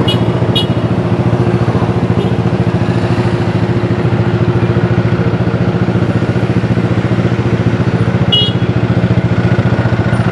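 Motorcycle engine idling steadily with a fast even pulse and no revving. A few short high-pitched beeps come twice near the start and once near the end.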